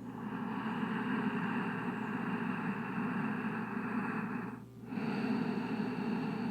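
Heavy breathing close to the microphone: one long breath of about four and a half seconds, a brief break, then another breath.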